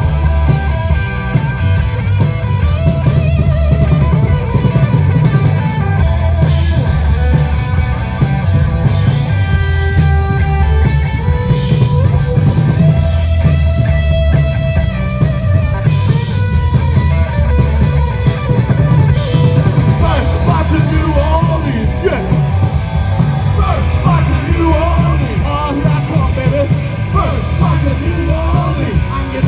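Live metal band playing loud: distorted electric guitar and a pounding drum kit over heavy bass.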